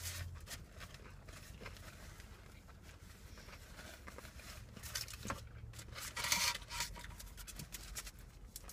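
Faint rustling and scraping of paper food wrappers and napkins, louder for a moment about six seconds in, with quiet chewing.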